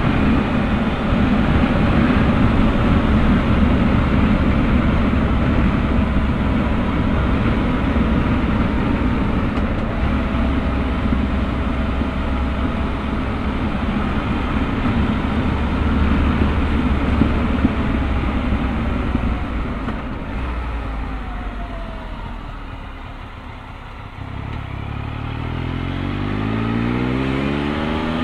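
Triumph Tiger Explorer's three-cylinder engine running at road speed, with wind rush on the bike-mounted microphone. About two-thirds of the way in it eases off and goes quieter, then the engine note rises as the bike accelerates near the end.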